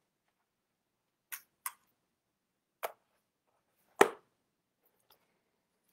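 Four short, separate clicks and knocks, like small objects handled at a desk, the loudest one about four seconds in.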